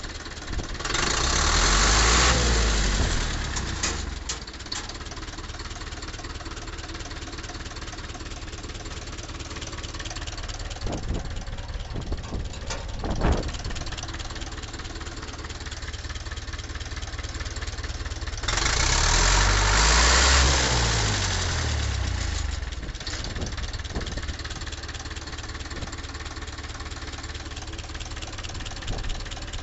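Ursus C-360 tractor's four-cylinder diesel engine idling steadily with a diesel knock, revved up briefly and let fall back to idle twice: about a second in and again about two-thirds of the way through. It runs on freshly regenerated injectors with the injection timing reset, which the owner says makes it run better.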